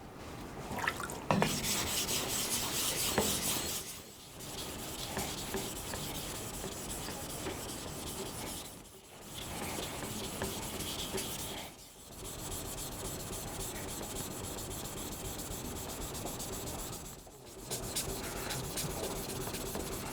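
Steel kitchen knife blade (a tall bunka) being stroked across a Cerax 1000 grit whetstone: a steady scraping rasp, stopping briefly about four times, as the edge is refined.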